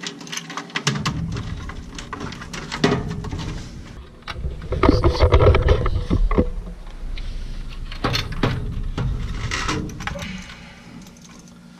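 Plastic clicks and rustling as a furnace control board and its wiring harness are handled, with a low rumbling handling noise that is loudest about five to six and a half seconds in.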